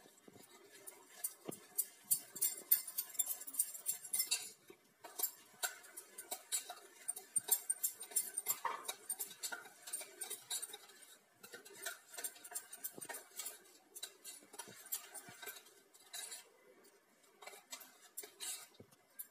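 A utensil scraping and clinking against a stainless steel bowl as thick gram-flour batter is stirred by hand: a rapid, uneven run of clicks and scrapes with a few short pauses.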